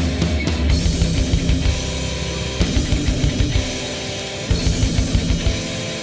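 Background rock music with drums and electric guitar and a steady beat.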